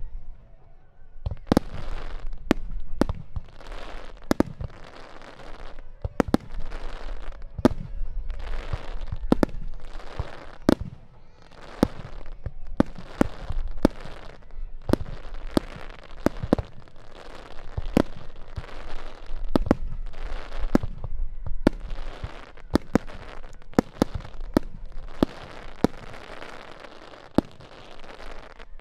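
Japanese aerial firework shells bursting in a rapid star mine barrage: dozens of sharp bangs, about one or two a second, with crackle and low rumble filling the gaps between them.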